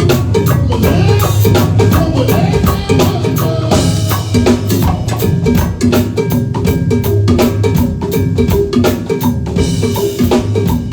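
Live band playing, with a drum kit keeping a steady beat over a bass line. Cymbals crash about four seconds in and again near the end.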